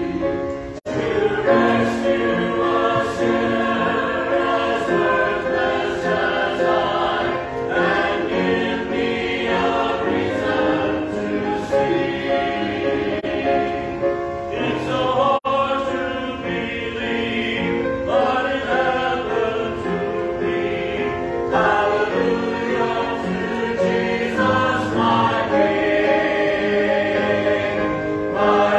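Church choir singing a hymn in parts, picked up through a phone's microphone, with two very brief dropouts in the sound, about a second in and again about halfway through.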